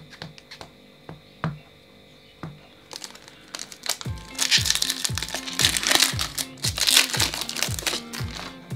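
Foil Pokémon booster pack crinkling loudly as it is torn open, in the second half, after a few light clicks of cards being handled. Background music with a steady beat comes in about three seconds in.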